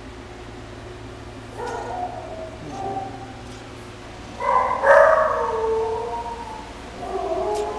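Domestic cat meowing: a few meows, the loudest and longest about halfway through, drawn out and falling in pitch, with another beginning near the end.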